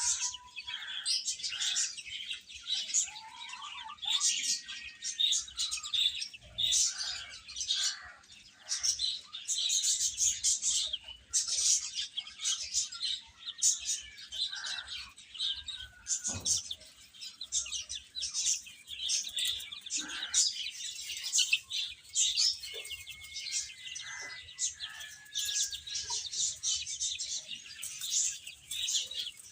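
A group of baby chicks peeping continuously in many short, high, overlapping chirps, with a few longer calls that slide down in pitch.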